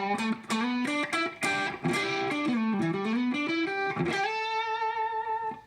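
Electric guitar through a compressor pedal with its level cranked, pushing a tube amp's clean channel toward breakup: a fast run of picked single notes, ending in one note held for about a second and a half that stops suddenly.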